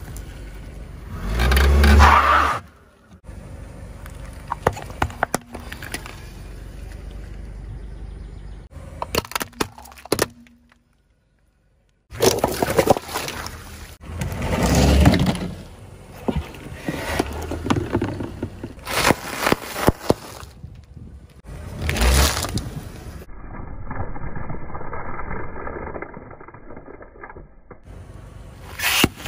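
A car tyre slowly rolling over and crushing a series of objects on asphalt, including soap bars, a plastic motor-oil jug and bags of gummy candy. The clips come one after another, each with its own loud squash, crack or crunch and crackling in between.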